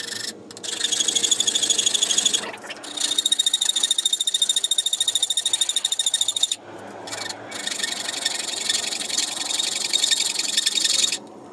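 Hand file rasping across the freshly cut end of a handlebar tube, flattening the sawn edge, with a ringing scrape in several runs of quick strokes broken by short pauses.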